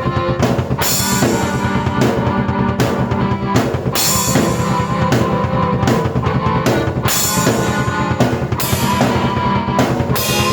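Drum kit and keyboard playing together as a rock-style piece: a quick, driving bass drum and snare under held keyboard notes, with a cymbal crash every couple of seconds.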